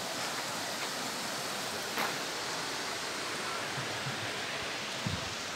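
Steady rushing of a shallow mountain stream, with one sharp click about two seconds in and a few low bumps near the end.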